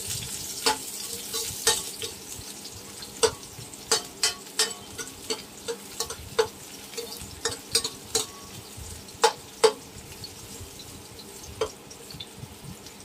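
Garlic and onion sizzling in hot oil in a steel wok, with a steady hiss and a spatula clinking and scraping against the pan at irregular moments as they are stirred.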